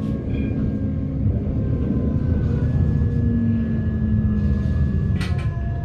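Tram running, heard from inside: a steady low rumble of wheels on rails, with a motor whine that slowly shifts in pitch and a sharp click about five seconds in.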